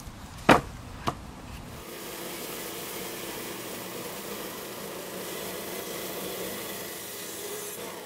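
Two sharp wooden knocks in the first second or so as a log is set onto wooden log holders, the first the louder. From about two seconds in, a homemade band sawmill runs steadily, its blade cutting through the log.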